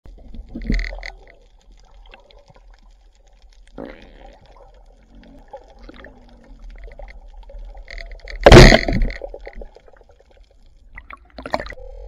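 Underwater water noise around the camera: low sloshing and bubbling, broken by a few short gurgles, with one louder rushing gurgle lasting about a second, around eight and a half seconds in.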